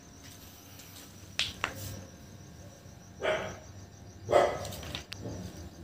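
Crickets trilling steadily, with a dog barking twice, about three and four and a half seconds in, the second bark the loudest, and a softer bark near the end. A couple of sharp clicks come about a second and a half in.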